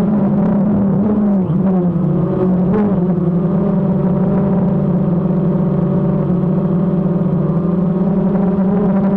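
DJI quadcopter's motors and propellers running with a steady, loud, pitched buzz, heard close up from the camera mounted on the drone. The pitch wavers briefly about one to three seconds in as the motors change speed, then holds steady.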